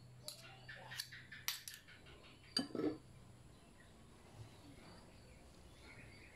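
Metal spoons clicking and scraping against each other and a glass bowl as margarine is pushed off a spoon into flour. There are several light clicks in the first two seconds, then a louder clunk about two and a half seconds in.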